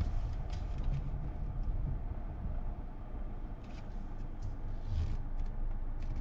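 Low, steady rumble of a car's engine and tyres heard from inside the cabin as it rolls slowly along.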